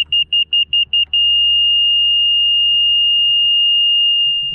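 Laser level receiver beeping: quick high beeps, about six a second, which signal the receiver is slightly off grade, then, about a second in, one steady unbroken tone, the signal that it is exactly dead level.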